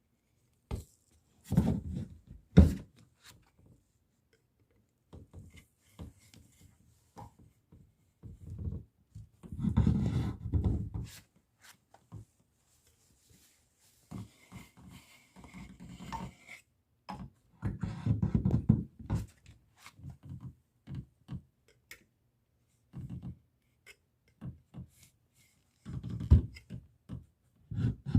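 Baseboard being pried off a drywall wall while the caulk line is cut with a utility knife: irregular scraping, rubbing and wooden knocks come in short bouts with pauses between them.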